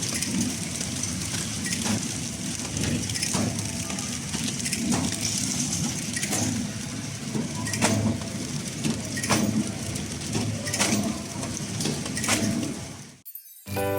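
Horizontal pillow-type packaging machine (flow wrapper) running, a steady mechanical noise with a sharp click about every one and a half seconds as it cycles. The sound cuts off about a second before the end.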